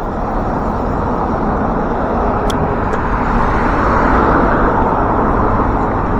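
Road traffic noise heard from a moving bicycle: a motor vehicle approaching, its tyre and engine noise growing gradually louder, over steady wind rumble on the microphone.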